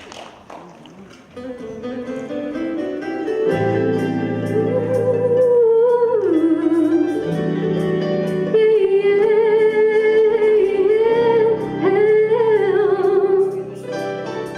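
A song performance: a soft instrumental intro starts about a second in, a low accompaniment comes in around three and a half seconds, and then a woman's voice sings a melody with vibrato over it.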